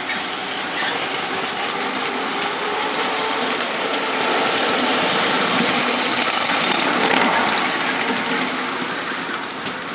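A 5-inch gauge ride-on miniature train running along the track past the listener: a steady running noise of the train on the rails, growing louder over the first few seconds and then fading as it draws away.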